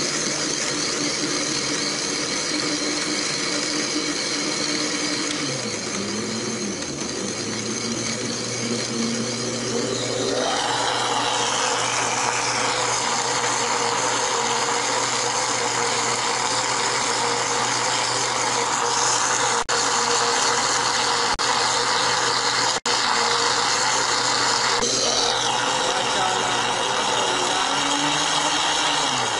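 Electric jug blender motor running, blending peach pieces, milk and ice cubes in a glass jar. The sound shifts about ten seconds in, growing brighter, and changes again near the end.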